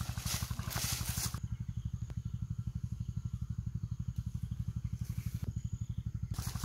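A small engine runs steadily with a rapid low pulsing. Over it, footsteps rustle and crunch through dry leaf litter for the first second and a half, then stop.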